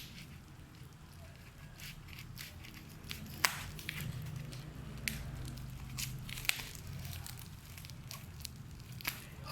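Gift packaging being handled and opened: crinkling and tearing with scattered sharp clicks and crackles.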